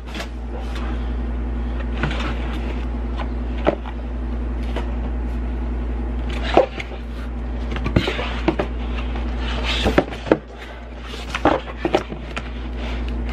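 Cardboard Little Caesars pizza box being handled: its flaps moved and pressed down, with scattered taps and rustles, over a steady low hum.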